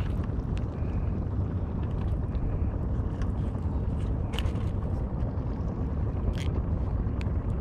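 Small fishing boat's engine running, a steady low rumble, with a few faint clicks over it.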